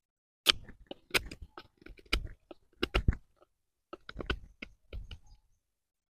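BPS Bushmate carbon-steel bushcraft knife shaving bark and wood off a thin dry stick: about six short, sharp cutting strokes, with gaps between them.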